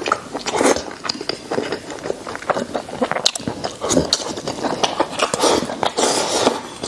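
Close-miked mouth sounds of a man eating very tender braised pork knuckle: wet lip smacks, chewing and sucking at the meat in a quick irregular run of clicks, with a longer slurp near the end.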